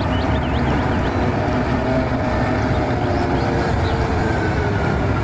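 Large mining haul truck driving, its diesel engine running with steady, heavy low-pitched noise, with a few faint high chirps in the first second.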